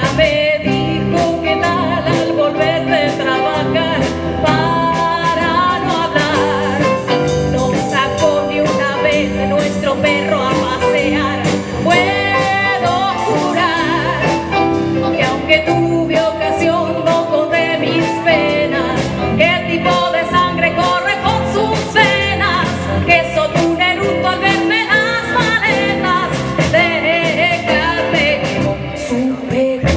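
Live band music: a hollow-body archtop electric guitar plays a lead line with bent and wavering notes over a steady rhythm section with a beat.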